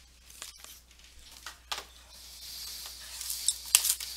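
Packaging of a trading card box being torn open, with crinkling and rustling and a few sharp snaps near the end.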